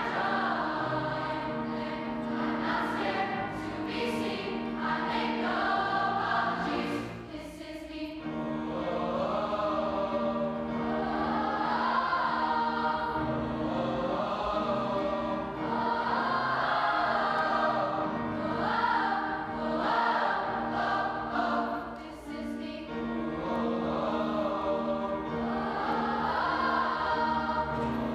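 Large youth choir singing in a concert hall, with two brief breaths between phrases, about a quarter of the way in and again near three-quarters.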